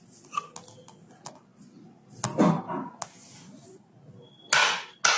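Faint clicks and knocks during a chiropractic tailbone adjustment, then near the end a quick series of sharp percussive hits, about two a second.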